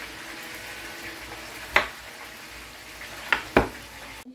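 Kitchen knife slicing carrot planks, striking the wooden cutting board three times: once about two seconds in, then twice close together near the end. A steady hiss runs underneath.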